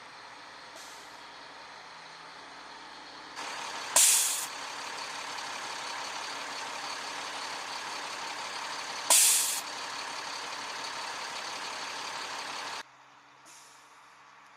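Heavy truck air brakes hissing twice, about five seconds apart, each a sudden loud hiss that fades within half a second, over steady vehicle engine noise. The background noise steps up in level about three seconds in and drops away abruptly near the end.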